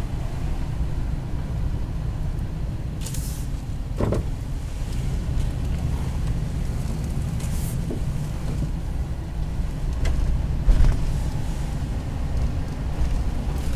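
Car driving slowly, heard from inside the cabin: a steady low engine and road rumble, with a few brief faint knocks and rustles.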